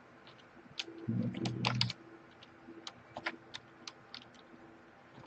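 Computer keyboard keys clicking irregularly as a terminal command is typed. A brief low rumble comes about a second in.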